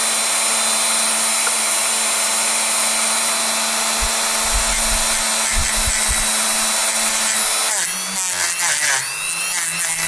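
Dremel rotary tool on a low speed setting, its abrasive cut-off wheel spinning with a steady whine as it cuts into aluminium wire. About eight seconds in, the pitch drops and wavers as the wheel bites and the motor comes under load.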